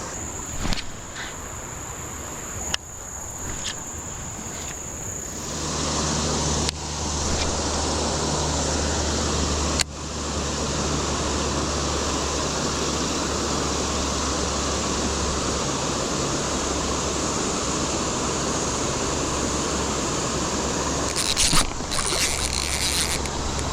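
Steady rush of a high, flooded creek. For the first five seconds it is quieter, under a steady high insect buzz and a few light clicks.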